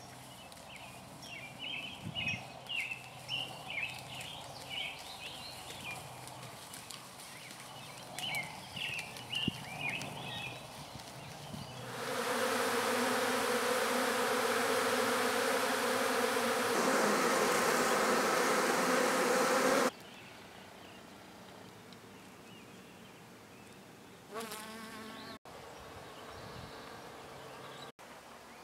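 Honeybees flying in numbers around their wooden hives: a loud, dense, steady hum that starts abruptly about twelve seconds in and cuts off about eight seconds later. Before it there is quieter outdoor sound with short high chirps.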